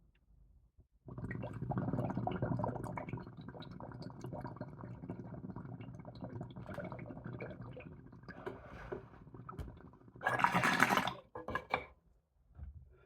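Water bubbling and gurgling in a water pipe as a long hit is drawn through it for about nine seconds, loudest at the start and slowly fading. Then a loud breath out about ten seconds in, followed by two short bursts.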